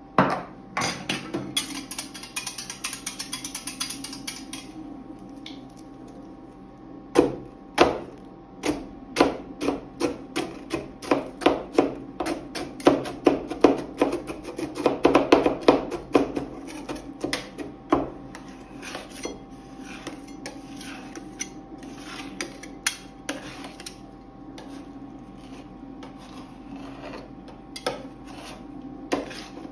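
Two metal spatulas chopping a chocolate wafer bar into liquid ice cream base on a stainless steel cold plate: a long run of sharp taps of the blades on the metal plate, several a second, starting about seven seconds in and thinning out near the end. A rasping scrape is heard in the first few seconds.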